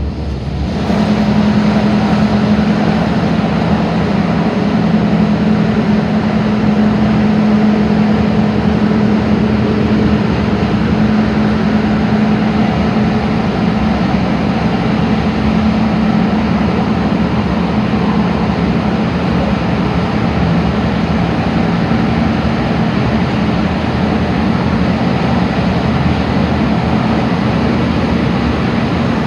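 MTR K-Train electric multiple unit running at speed, a steady rumble of wheels and running gear with a low steady hum from the drive. It grows louder about a second in and then holds.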